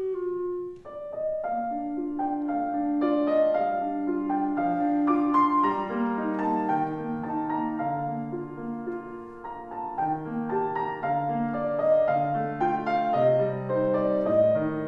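A clarinet ends a falling glide about a second in, then a grand piano plays on alone: a busy passage of notes over a lower moving line.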